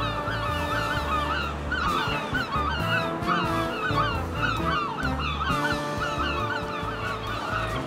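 A crowd of gulls calling, many short, squawking cries overlapping continuously, over background music with sustained notes and a stepping bass line.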